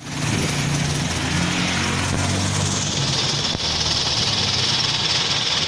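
Isuzu Panther's diesel engine idling steadily on its stock exhaust, heard at the open engine bay. A high hiss grows louder about halfway through.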